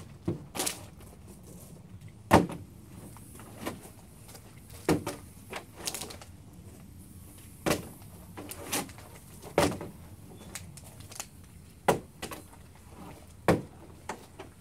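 Plastic water bottles flipped onto a table, landing with a series of sharp thuds and knocks at irregular gaps of one to two seconds; the loudest comes about two seconds in.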